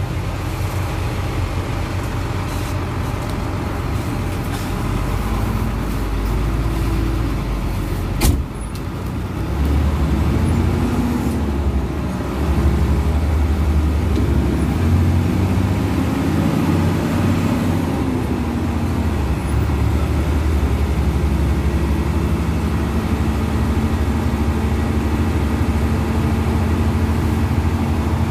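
Sumber Selamat intercity bus's diesel engine running, its pitch rising and falling as it revs. There is a sharp click about eight seconds in, and the engine gets louder at about ten and again at about twelve seconds.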